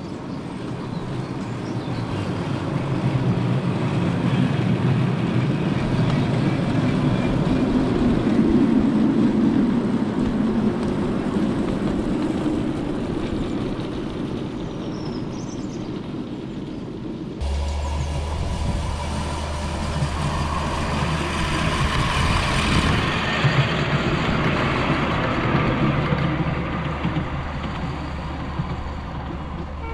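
Miniature railway train running on the track: the rumble builds up, peaks and eases away. A little past halfway the sound changes abruptly to another run, with a steady low hum under the rumble and a whine that rises and falls.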